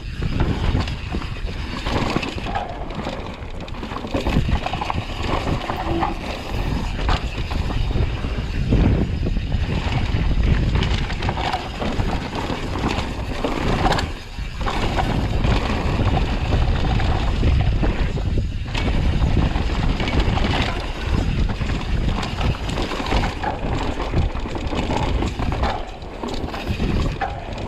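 Wind buffeting the microphone over the constant clatter and rattle of a mountain bike rolling fast down a rough bikepark trail, tyres crunching over dirt and roots.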